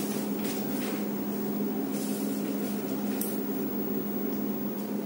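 Steady machine hum from ENT examination equipment, with a few short hissing bursts over it.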